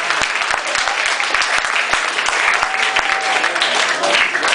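Audience applauding and cheering, with a whoop partway through; the applause fades just after.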